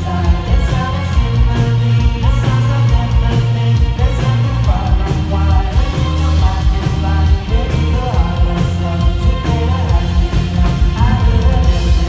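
Live psychedelic rock band playing: electric guitar, keyboards and drums with a male lead vocal, heard from within the audience.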